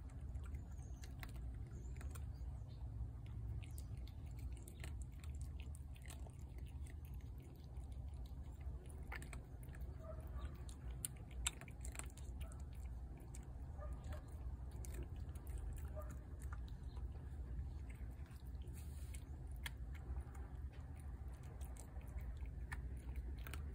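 A cat chewing food from a plate, a run of irregular short wet clicks over a steady low hum.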